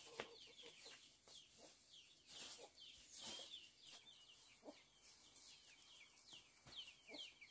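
Faint, steady chirping of birds: short, high, falling notes repeated several times a second, with a few soft rustles.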